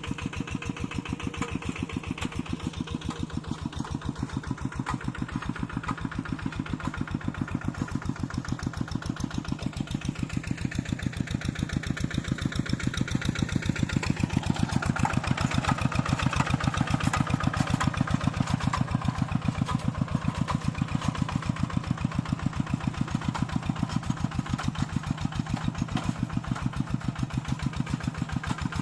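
Farm tractor engine running steadily with an even, rapid beat, growing somewhat louder about halfway through.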